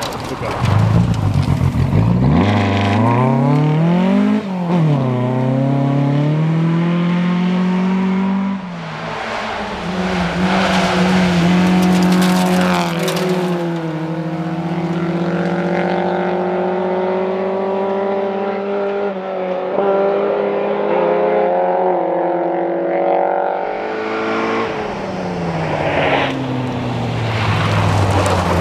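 Rally cars passing at speed, engines revving hard, the pitch climbing and dropping repeatedly through gear changes.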